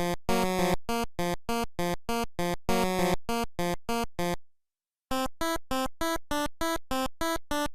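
Electronic music of short, staccato synthesizer notes, about three a second, with a half-second break a little past the middle.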